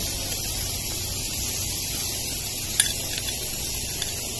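Shrimp and steak sizzling on a charcoal grill, a steady hiss, with one faint click a little under three seconds in.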